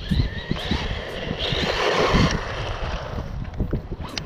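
MJX Hyper Go 1/16 brushless RC truck driving on wet ground in the rain: a thin motor whine with the hiss of tyres spraying through water, swelling louder for about a second near the middle.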